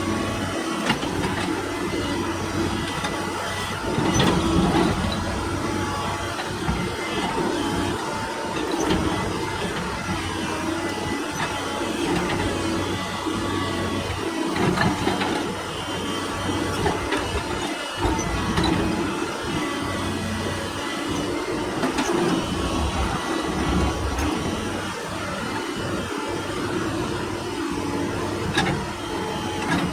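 Doosan excavator's diesel engine running steadily under load, with scattered knocks and clanks of the bucket working rock.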